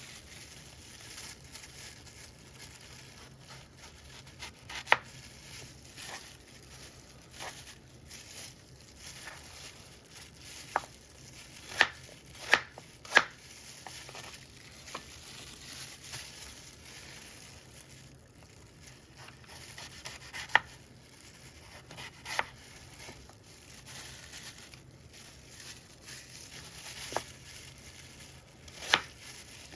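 A knife cutting apples on a cutting board: sharp knocks of the blade striking the board at irregular intervals, with a quick run of three near the middle, over soft scraping and handling noise.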